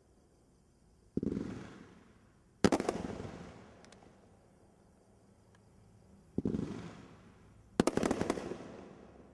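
500-gram consumer fireworks cake firing two shots: a tube lifts off with a dull thump about a second in, and its shell bursts with a louder cluster of sharp bangs about a second and a half later; the same thump-then-bang pair repeats past the six-second mark.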